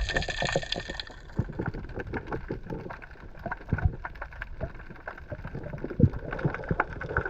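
Underwater sound on a dive: many scattered sharp clicks and knocks over a low rumble, with a high hiss that fades out about a second in.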